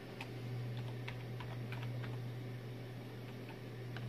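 Computer keyboard being typed on: irregular single keystrokes, a few a second, over a steady low hum.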